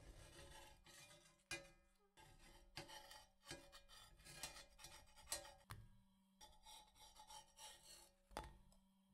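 A slotted metal spatula scrapes quietly across a nonstick frying pan and slides under small pancakes, flipping them. Sharp taps and clicks come at irregular moments throughout.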